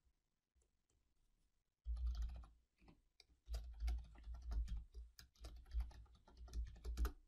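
Typing on a computer keyboard: a quick run of keystrokes starts about two seconds in, pauses briefly, then goes on until just before the end.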